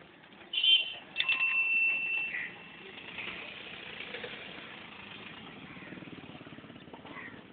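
Street traffic: a short, sharp high horn blast, then a steady horn note held for about a second, over the running noise of a moving vehicle.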